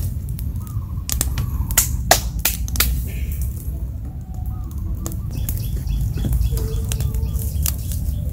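Small wood-and-bark campfire crackling, with irregular sharp pops over a steady low rumble.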